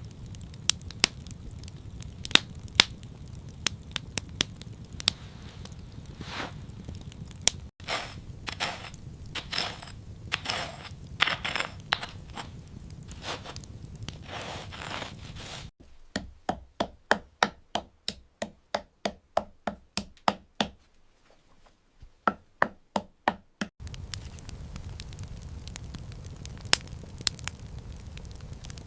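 Knife chopping food on a cutting board, in a few edited stretches; in the middle a steady run of about three strokes a second, and elsewhere scattered crisp cracks and crackles over a low rumble.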